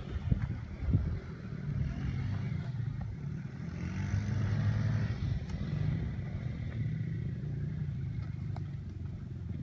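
Dirt bike engine running, its revs rising and falling, with a few sharp knocks in the first second.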